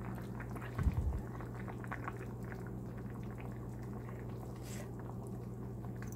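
Pan of mung bean soup simmering on the stove, with faint bubbling and crackling over a steady low hum. A single low thump comes about a second in.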